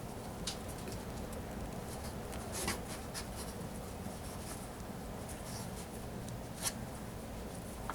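Hands handling nylon paracord: soft rubbing and sliding as the cord is threaded and pulled through a knot, with three brief scratchy rustles.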